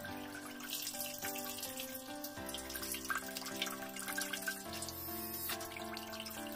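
Water splashing steadily as a jet from a small homemade water pump sprays into a basin of water, under background music.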